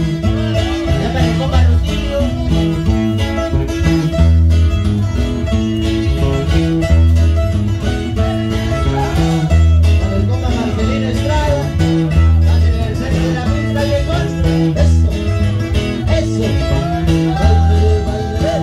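Live band playing dance music loud: plucked and strummed guitars over a steady, repeating bass line.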